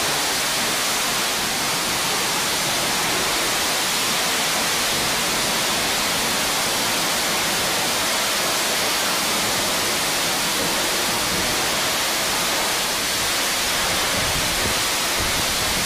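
Steady rushing of falling water, an even hiss that does not change.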